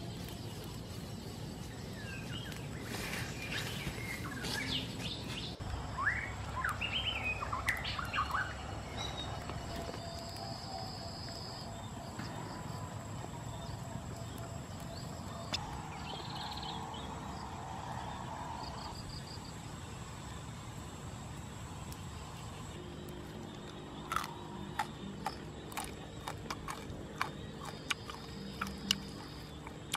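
Wild birds chirping and calling over a steady outdoor background noise, with a few high whistled notes midway. A run of sharp clicks comes in the last few seconds.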